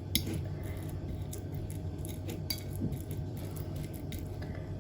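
Light clinks and taps of a utensil against a dish, scattered irregularly, as boiled peeled garlic cloves are worked in it. There is a faint steady hum underneath.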